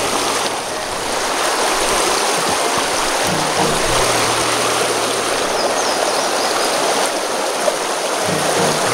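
A small rocky forest stream rushing through a riffle, a steady even sound of flowing water.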